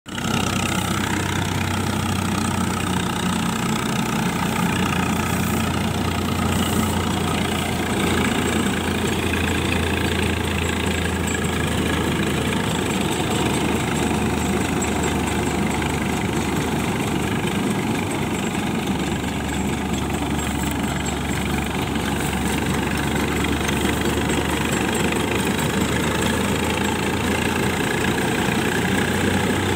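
Swaraj 744 XT tractor's three-cylinder diesel engine running steadily under load, driving a Gobind straw reaper that cuts wheat stubble and blows the chopped straw into a trolley; the engine and the reaper's working machinery run together without a break.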